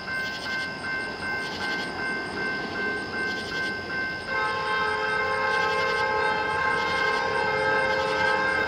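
A bell rings in a steady pulse about twice a second. About four seconds in, a diesel locomotive's multi-note air horn sounds and holds as a chord.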